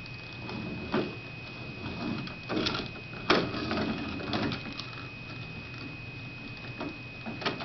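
Yellow plastic toy shopping cart rattling and knocking as a toddler pushes it over a hard floor, in short irregular clatters with the sharpest knock a little past three seconds in. A steady high thin whine runs underneath.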